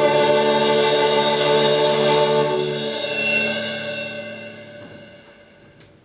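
Background music: a sustained held chord that fades out steadily over the last three seconds.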